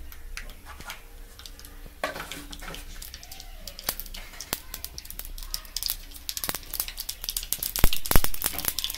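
Mustard seeds sizzling in hot oil in a small steel tempering pan, starting to pop and crackle about six seconds in, with sharper, more frequent pops near the end as the seeds begin to splutter.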